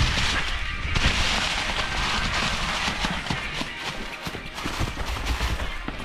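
Electric mountain bike riding over a rough, leaf-covered trail: tyres crunching through leaves and over rock, with frequent knocks and rattles from the bike over the bumps and a low wind rumble on the microphone.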